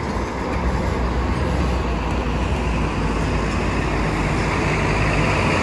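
Diesel bus engines running in a bus terminal: a steady low rumble under an even hiss that grows a little louder toward the end.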